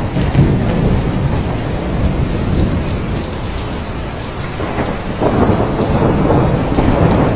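Steady rain falling with a continuous low rumble of thunder; the thunder swells louder about five seconds in.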